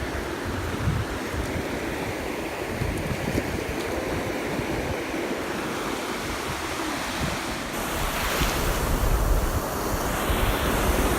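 Ocean surf breaking and washing up the beach, with wind buffeting the microphone; the wash grows louder from about eight seconds in.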